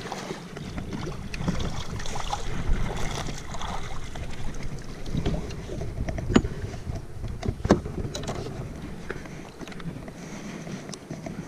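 Wind buffeting the microphone over water sloshing around a fishing kayak. About halfway through come two sharp knocks a little over a second apart, with a few fainter clicks around them.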